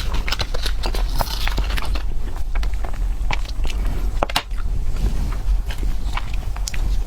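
Crunchy eating sounds: biting and chewing food with many sharp, irregular crackling clicks over a steady low hum.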